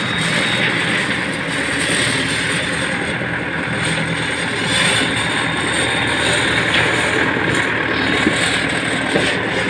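Sonalika DI 60 tractor's diesel engine running steadily under load while pulling a rear-mounted trencher that cuts a trench through the soil.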